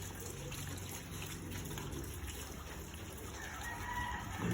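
A rooster crowing faintly near the end, over a low steady background hiss.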